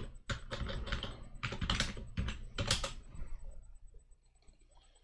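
Typing on a computer keyboard: a quick run of keystrokes for about three seconds, then the typing stops.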